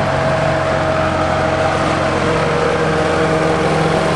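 An engine idling steadily: a loud, even drone with a held hum that does not change.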